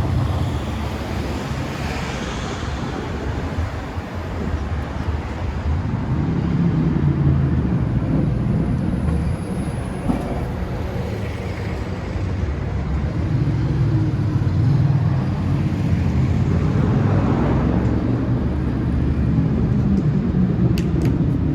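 City street traffic: a steady low rumble of road vehicles, swelling several times as vehicles pass.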